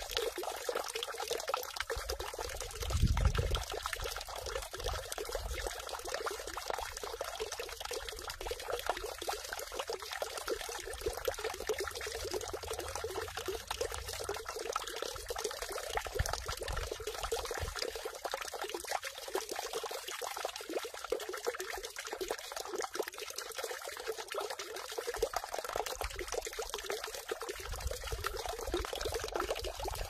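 Water falling steadily from a spout into a stone water basin (sugwak) and splashing on the pool's surface. A brief low thump about three seconds in.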